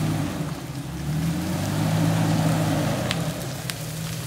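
A 4x4's engine pulls under throttle on an off-road climb. Its revs dip and then rise again about a second in, over a steady hiss of tyres on the trail. Two sharp clicks come near the end.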